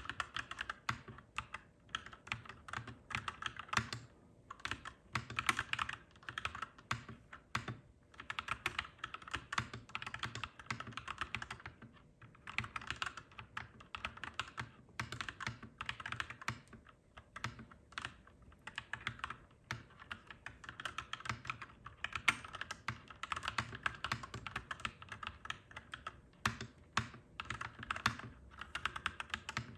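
Clacky mechanical keyboard being typed on in quick continuous runs of keystrokes, broken by short pauses every few seconds, over a faint low steady hum.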